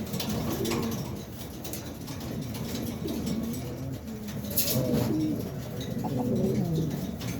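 Buchón pouter pigeons cooing, a string of low, rising-and-falling coos that overlap one another, with a brief sharp rustle about two-thirds of the way through.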